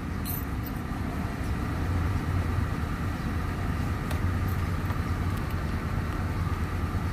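2001 Honda Civic Dimension LXi engine idling steadily with the air conditioning switched on; the idle has dropped and the engine is labouring under the AC load.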